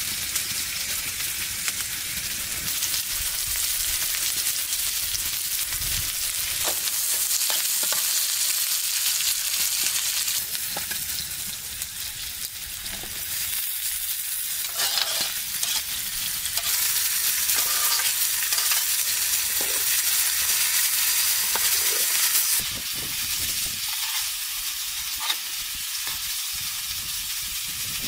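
Mushrooms frying and sizzling in oil in a shallow metal pan over a wood fire, a steady hiss with occasional clicks of a spoon stirring against the pan.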